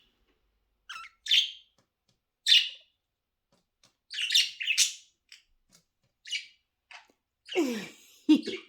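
Pet budgerigars chirping in short, high-pitched calls with gaps between, a cluster of them halfway through. Near the end there is a brief lower-pitched sound that falls in pitch.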